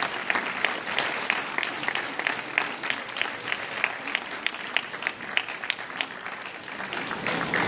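Audience applauding, a dense patter of many hands with a few close, sharp claps standing out.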